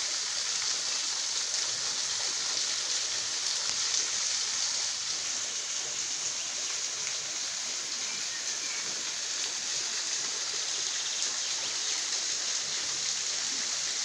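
A waterfall at low water, a thin stream falling free from a rock ledge and splashing onto the rocks below: a calm, steady hiss of water without any roar or rumble.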